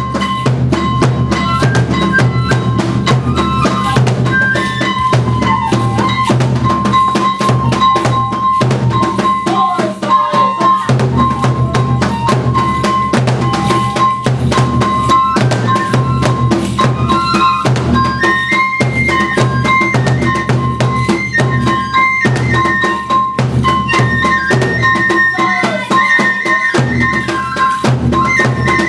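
Kagura music: a drum beaten in a fast, steady rhythm, with a high bamboo flute melody over it.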